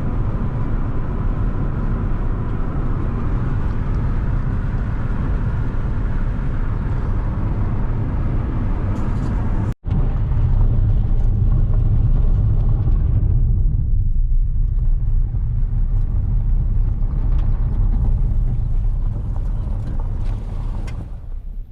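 Moving car: a steady low rumble of engine and road noise, which drops out for an instant about ten seconds in.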